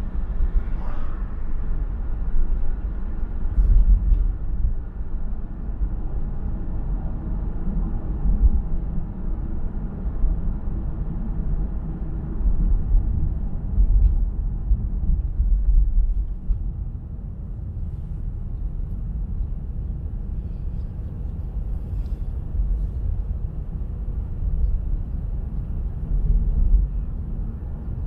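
Steady low rumble of a car driving: tyre and wind noise, with the level wavering a little.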